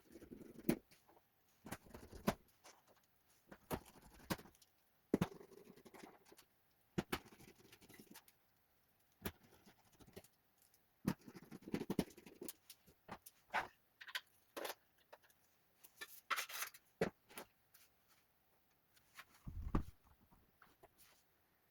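Irregular clicks, taps and short rustles of hands handling Acer Nitro 5 laptop parts and tools during the fan repair.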